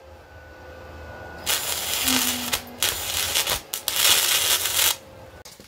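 Wire-feed welder arc crackling steadily as a bridge weld is run across a gap in a car exhaust pipe. It strikes about a second and a half in, breaks off briefly twice, and stops near the end.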